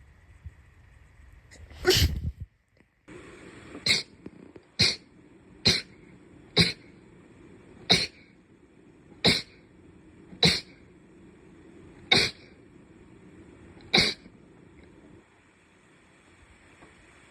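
Ten short, sharp sneezes, one after another about one to two seconds apart; the first, about two seconds in, is the loudest.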